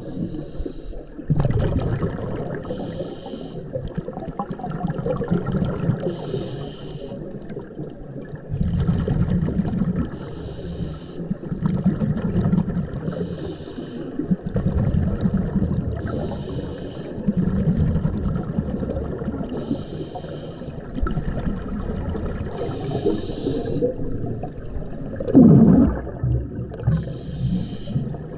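Scuba diver breathing through a regulator underwater, regular breaths about one every three and a half seconds: a hiss on each inhale and a bubbling rush of exhaled air between, with a louder burst of bubbles near the end.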